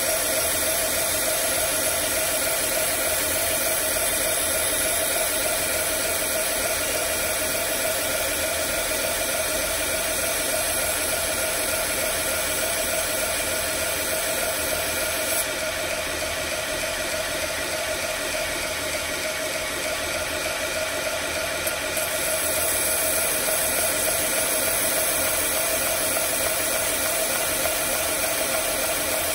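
Belt grinder with a 120-grit belt running steadily while a thin chef's knife blade is ground freehand against it with a light touch in the finish-grinding stage: a continuous grinding hiss over the motor and belt whir. It is a little quieter for several seconds in the middle.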